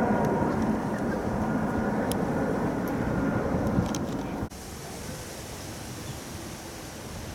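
Twin-engine jet airliner flying low overhead on its approach to land: steady jet engine noise with a thin whine above it. It cuts off suddenly about four and a half seconds in, leaving a quieter outdoor background.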